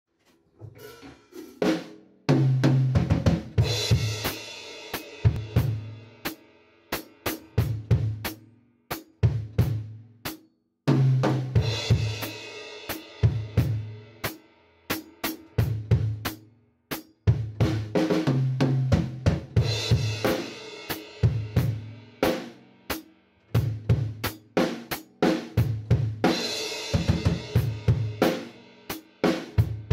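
Acoustic drum kit played through a graded exam piece: snare and bass drum in a steady groove, with a ringing Zildjian cymbal crash about every eight seconds. A few light hits come first, the full groove comes in about two seconds in, and there is a brief break just before the eleventh second.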